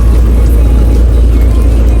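Steady, loud low rumble of a fishing boat's engine running, with a dense noisy wash over it.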